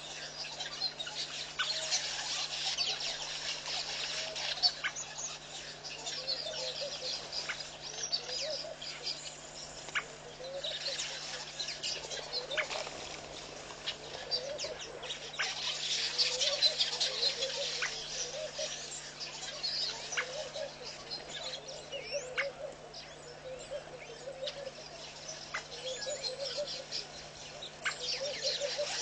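Many birds calling at once: a dense chatter of high chirps and twitters, with a short lower call that rises in pitch repeated throughout.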